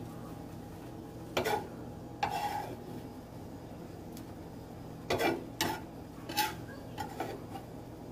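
A cooking utensil clanking and scraping against a pan as chopped onion, bell pepper and garlic are stirred in oil, about seven short knocks and scrapes at uneven intervals. A steady low hum runs underneath.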